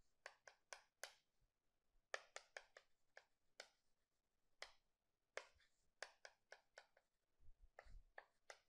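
Faint chalk on a chalkboard: short, sharp taps and brief strokes at an uneven pace as characters are written.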